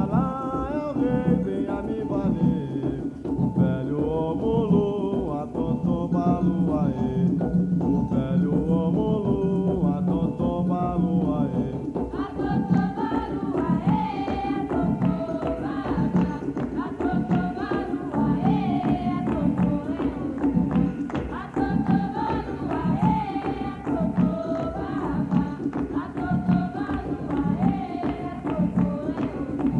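Umbanda ponto cantado: voices singing a chant over a steady hand-drum rhythm, on a cassette recording. About twelve seconds in the singing moves to a higher melody.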